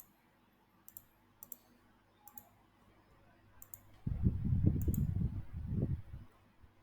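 Several sharp, light clicks, about one a second, typical of a computer mouse being clicked; from about four seconds in a louder, uneven low rumble comes in for about two and a half seconds.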